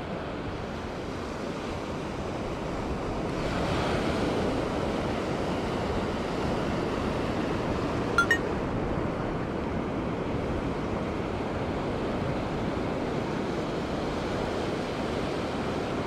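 Ocean surf washing up the beach, a steady rush of waves that swells about three to four seconds in. A brief click cuts through once, a little past halfway.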